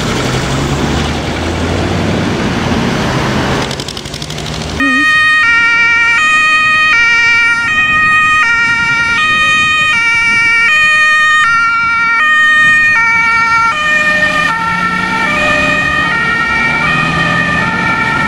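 A fire truck's engine running as it drives past, then, after an abrupt change about five seconds in, a German fire engine's two-tone Martinshorn siren alternating between its high and low notes about every half second. Near the end the siren's pitch drops as the vehicle passes and drives away.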